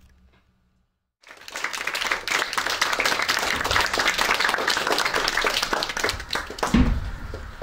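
Audience applauding: many hands clapping together, starting suddenly about a second in and dying away near the end, with a low bump just before it fades.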